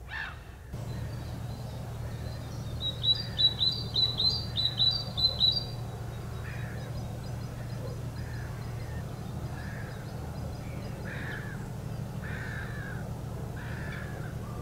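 A gull calls briefly at the start. Then birds call in the trees: a fast run of about ten high, piercing notes a few seconds in, followed by softer falling calls about once a second, over a steady low hum.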